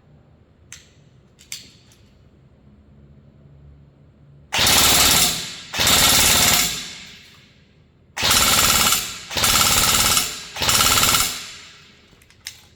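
INF M4 14.5-inch electric airsoft rifle firing five full-auto bursts of about a second each. The gearbox cycles rapidly and each burst stops cleanly. This is a test fire after a circuit repair for runaway full-auto fire, and the gun is working without fault. Two faint clicks come before the first burst.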